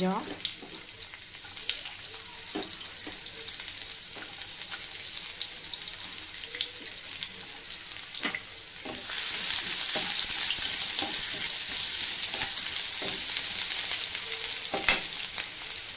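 Chopped red onion and cumin seeds sizzling in hot oil in a non-stick pan, with scattered small pops and knocks of a wooden spatula stirring. The sizzle grows louder about nine seconds in.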